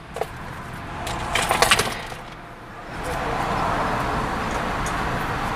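Ice rattling briefly in a paper fast-food cup. About three seconds in, a steady rushing noise starts and keeps going.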